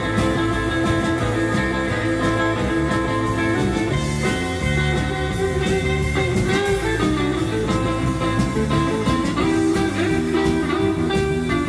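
Rock band playing an instrumental passage without vocals, guitar to the fore over a moving bass line.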